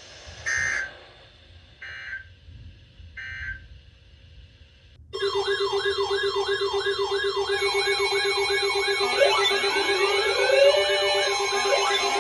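Three short bursts of Emergency Alert System digital data tones, the end-of-message signal that closes an alert. About five seconds in, a loud layered mix of sirens and alarm tones starts: a yelping siren sweeping about three times a second, a steady pulsing low tone, and slower rising siren wails over it.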